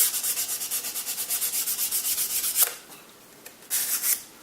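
Fine sandpaper rubbed rapidly back and forth over the light-trap tab of an old 5x7 plate holder, about eight strokes a second, smoothing off old hinge-tape adhesive. The strokes stop a little under three seconds in, then a short burst of sanding comes near the end.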